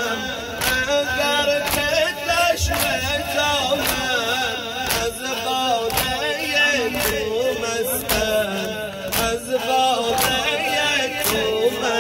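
A male eulogist chanting a Shia mourning lament (noha) through a microphone and loudspeakers, while a crowd of men strike their chests in unison in time with it, about three strikes every two seconds.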